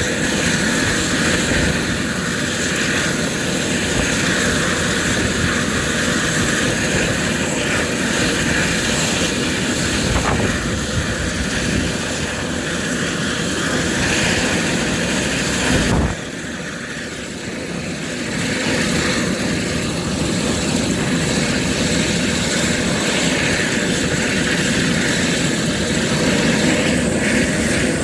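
Eurocopter EC130 helicopter running on the ground: the single turboshaft engine whines steadily while the main rotor turns. The sound drops briefly about sixteen seconds in, then picks up again.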